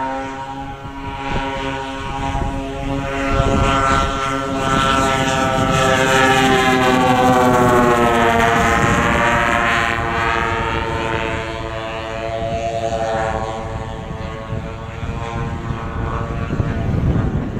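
Twin engines of a giant-scale radio-controlled Bristol Beaufighter model running in flight, a steady drone that grows louder toward the middle and dips a little in pitch as the plane passes.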